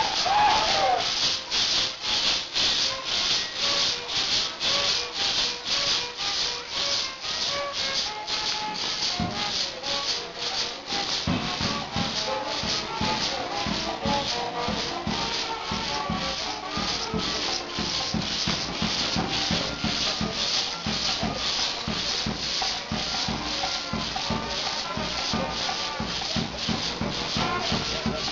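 Maracas shaken in a steady rhythm by a group of dancers. A low, regular beat joins about eleven seconds in.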